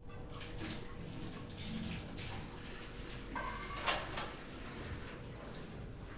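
Water running at a kitchen sink with dishes being handled, with scattered clinks. There is a short squeak a little past three seconds in, then a sharper clatter.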